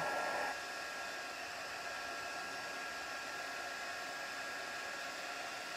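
Craft heat tool blowing hot air steadily with a faint whine, drying water spritzed onto oxide inks. It drops a little in level about half a second in.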